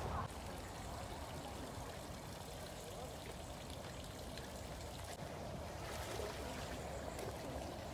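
Water trickling and running steadily in a small stone-lined pond channel.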